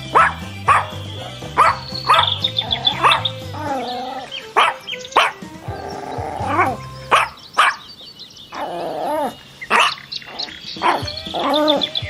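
Dog barking over and over in short barks, with a few longer drawn-out calls between them. Background music with a steady low beat plays underneath, and rapid high bird chirps sound a couple of times.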